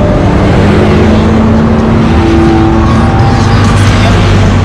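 A vehicle engine running loudly close by, a steady rough rumble with no sudden changes.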